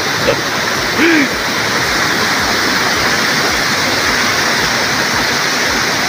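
Steady, continuous rush of a waterfall pouring into a pool.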